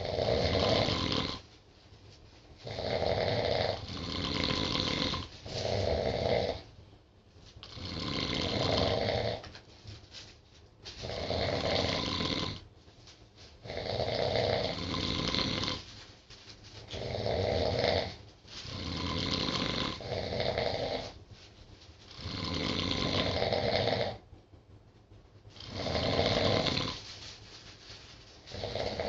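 Two sleeping people snoring, loud rasping snores about every two to three seconds with quieter breathing in between.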